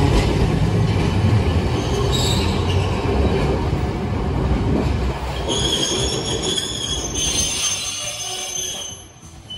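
Hiroden 1900-series streetcar running away along its rails: a low rumble of the tram, a brief wheel squeal about two seconds in, then a longer high-pitched squeal of steel wheels on the rails from about halfway until near the end, when the sound drops away.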